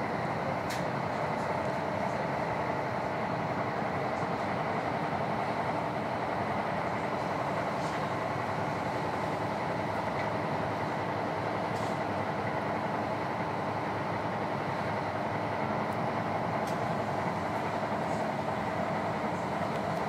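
Running noise inside a Karlsruhe Stadtbahn light-rail car at speed: a steady, even rumble of wheels on rail with a constant hum underneath, and a few faint clicks scattered through it.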